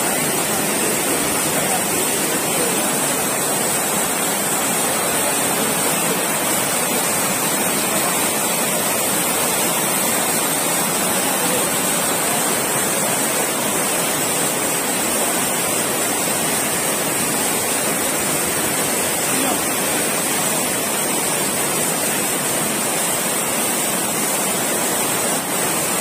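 Hill stream in flood after cyclone rains, water rushing over rocks in a steady, unbroken torrent.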